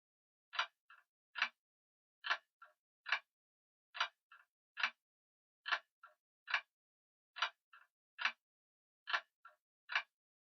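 Grandfather clock ticking: a repeating pattern of three sharp clicks, loud, faint, loud, about every second and three-quarters, with silence between the groups.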